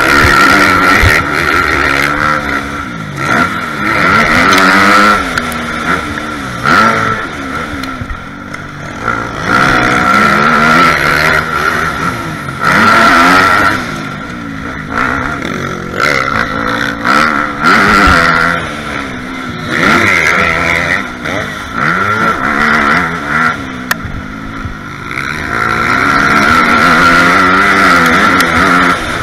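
Dirt bike engine being ridden hard, its revs climbing and dropping again every second or two through corners and gear changes, then held high along a straight near the end, heard from a helmet camera.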